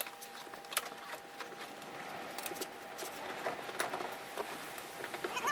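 Pickup truck floor carpet being pulled back by hand: rustling and scraping with scattered small clicks, the rustle thickening about halfway through.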